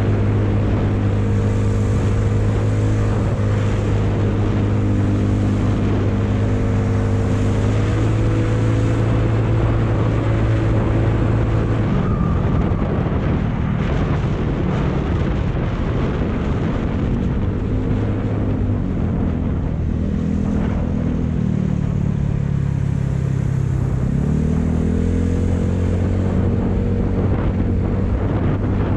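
Yamaha Mio scooter's single-cylinder engine running under way, its pitch dipping about two-thirds through and rising again with the throttle, with wind rushing over the microphone.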